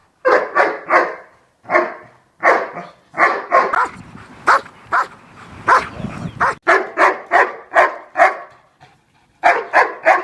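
A dog barking over and over in quick runs of short barks, about two to three a second, with a short pause near the end.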